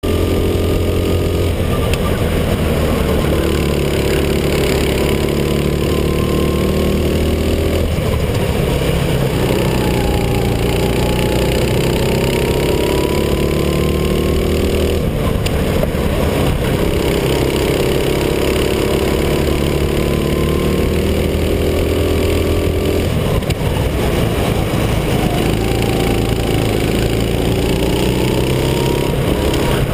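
Racing kart engine recorded onboard, running hard at full throttle. Its pitch climbs steadily along each straight and drops sharply as the throttle is lifted for a corner, about every seven to eight seconds.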